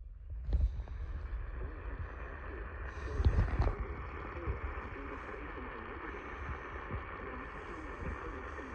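Crackly, hissing radio-feed static with a steady low rumble, swelling briefly about three seconds in.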